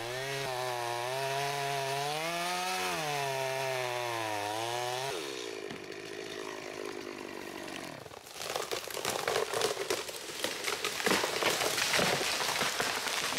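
Chainsaw cutting into a large tree trunk, its engine note wavering under load for about five seconds, then dropping away. From about eight seconds in comes a dense crackling and rustling as the hinge-cut tree falls through the branches.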